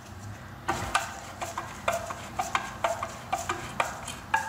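Screwdriver tightening the screw that holds the plastic end cover on a pool pump motor: a run of short metallic clicks, about three a second, starting just under a second in.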